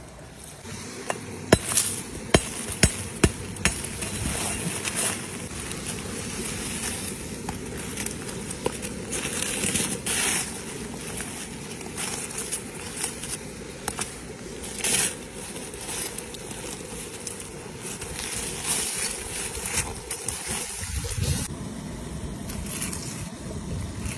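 Sharp cracks and crunching as stones are lifted off hot coals and a baked clay crust is broken open by hand, over the steady rush of a small creek waterfall. A cluster of loud snaps comes about two seconds in, then scattered crunches and scrapes.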